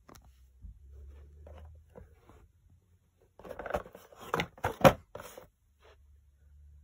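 Cardboard air-pistol box being handled and turned over by hand: a short cluster of scraping, rustling and knocks about halfway through, with one sharp knock the loudest near the end of it.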